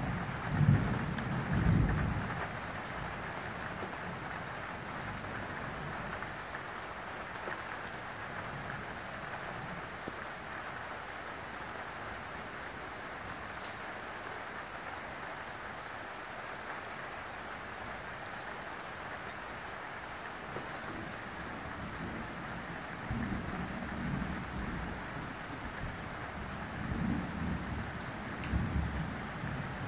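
Steady rain falling, with thunder rumbling in the first couple of seconds and again from about 23 seconds in, building toward the end.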